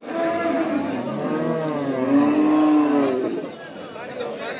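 A cow mooing, one long low call loudest about two seconds in, among people talking.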